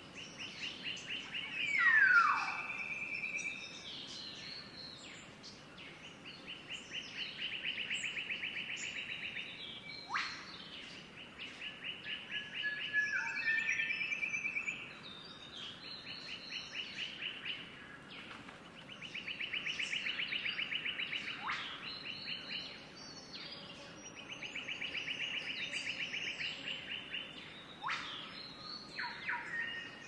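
Wild birds singing: a fast, even trill of a few seconds that comes back about every six seconds, a few clear whistles that slide steeply down in pitch, and scattered short chirps.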